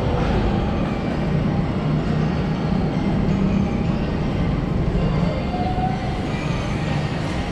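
Steady low hum and rumble of a rail and transit station concourse, with no single event standing out.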